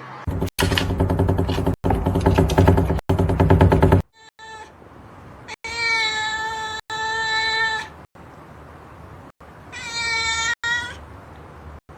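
Domestic cat meowing: a loud, rough, pulsing yowl for the first four seconds, then two long drawn-out meows held at one pitch, the first about two seconds long and the second shorter.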